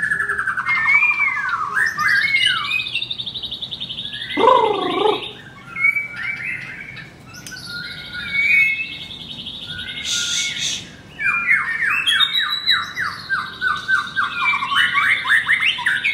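Caged songbirds singing loud, varied whistled phrases almost without pause. There is a low swooping note about four seconds in, a harsh rasp about ten seconds in, and fast runs of repeated notes near the end.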